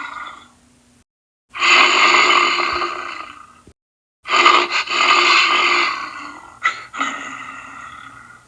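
Cartoon sea bear roar sound effect: two long roars, each fading and then cutting off, with a sharp jolt near the middle of the second one, after the fading end of a previous roar.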